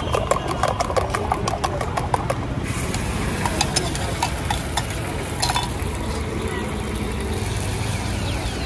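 Rapid metallic clicking of eggs being beaten in a steel mug, about six strokes a second, stopping near three seconds in. Beaten egg then sizzles on a hot iron griddle, over a steady low rumble of street traffic.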